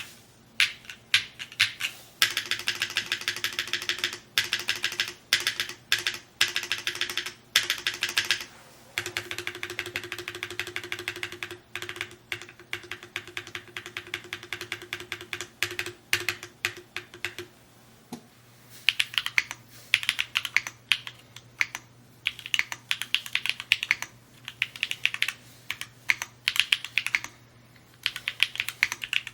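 Typing on a Mode Encore 2 mechanical keyboard: runs of keystrokes with short pauses. The strokes come fast and densely packed through the first half and in sparser bursts later on.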